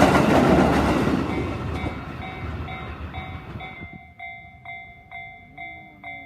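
A train passes and its rolling noise fades away over about four seconds. Under it, a Japanese level-crossing alarm bell rings in steady dings, about three every two seconds, and stands out clearly once the train has gone.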